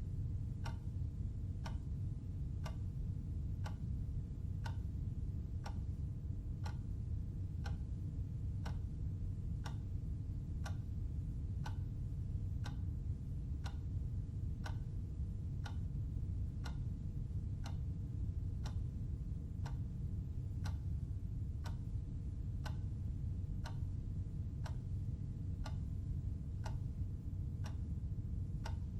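Clock ticking with evenly spaced ticks over a steady low hum.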